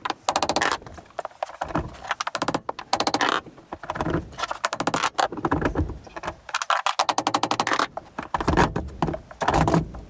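Claw hammer striking a wood chock to knock a minibus seat's quick-release clamps back along the aluminium floor rails, in a string of sharp knocks. In the second half the metal seat frame rattles and clunks in the rails as it is shaken free and lifted out.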